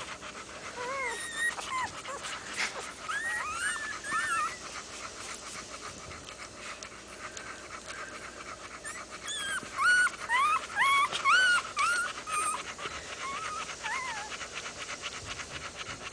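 Newborn boxer puppies squeaking: short, high cries that rise and fall, in a cluster a second or so in and a louder one from about nine seconds. Under them the mother boxer pants steadily.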